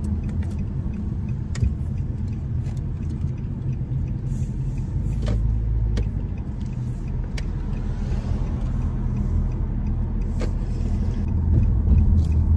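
Car interior noise while driving: a steady low engine and road rumble, with a few light clicks and a slight rise in loudness near the end.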